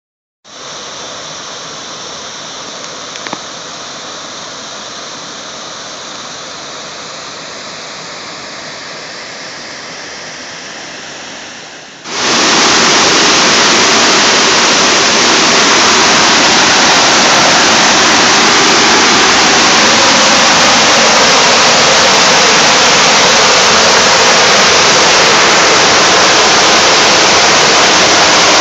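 Water pouring through a dam's grated outlet structure: a steady rush, moderate at first, that jumps suddenly about twelve seconds in to a much louder, close, steady roar of falling water.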